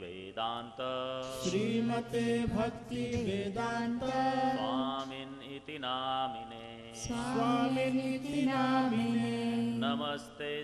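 Sanskrit Vaishnava invocation prayers sung slowly and melodically, with long held notes over a steady drone.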